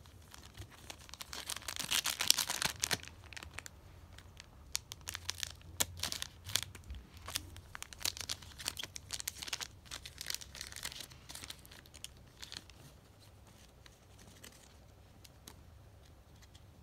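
Foil Pokémon card booster packs being torn open and crinkled by hand, in irregular bursts of tearing and crackling wrapper, loudest about two seconds in and again through the middle. The last few seconds are quieter, just the light rustle of cards and wrappers being handled.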